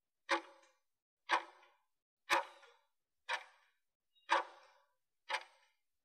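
Countdown timer ticking once a second, six sharp ticks that each die away quickly, counting down the last seconds of a work interval.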